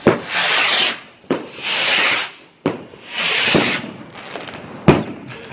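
Three firework rockets launching one after another, each a sharp crack followed by about a second of hissing whoosh, then a single sharp bang near the end as a rocket bursts.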